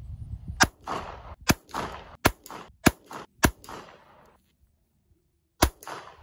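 Pistol fired six times: five shots about a second apart or less, then a last shot after a pause of about two seconds, each sharp crack followed by a short fading echo.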